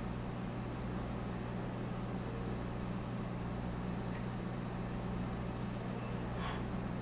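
Steady electrical hum of running aquarium equipment, a low mains drone with a soft hiss over it, unchanging throughout.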